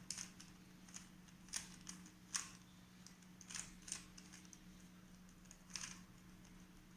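Faint, irregular plastic clicks of a Rubik's Cube's layers being turned by hand during a timed solve, over a steady low hum.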